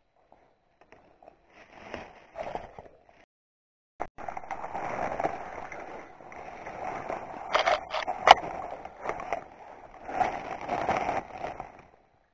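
Footsteps and rustling as someone pushes through grass and forest undergrowth, with a few sharp clicks a little past the middle. The sound cuts out completely for a moment about three seconds in.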